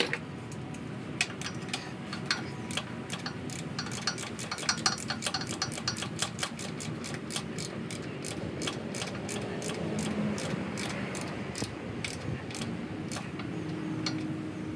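Ratchet wrench clicking in a long run of sharp clicks, about three a second, as a bolt is tightened to fasten the hydraulic pump's ground cable to the trailer frame.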